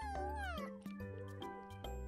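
A kitten meowing once, a call that slides down in pitch and ends within the first second, over background music with a steady ticking beat.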